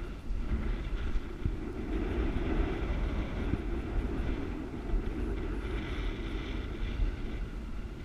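Wind buffeting the camera microphone: a steady, uneven low rumble.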